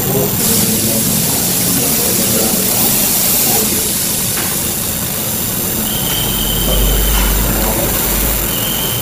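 Laser marking machine engraving the metal body of a pistol, a steady hiss with machine noise. A brighter hiss comes in just after the start and fades about halfway, and a short high tone sounds about six seconds in and again near the end.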